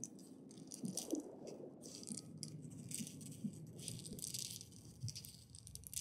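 Quiet, shaker-like rattling in short bursts about once a second, over faint low notes.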